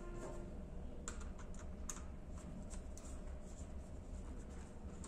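Faint, scattered light clicks and taps of a small tester screwdriver on the terminal screws of a plastic switchboard while the board and its wires are handled.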